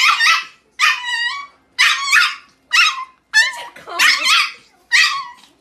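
Small dog yapping: a run of about seven sharp, high-pitched barks in quick succession, roughly one every second.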